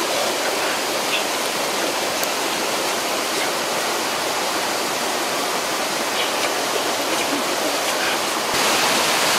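Steady rush of a waterfall and stream, getting a little louder near the end.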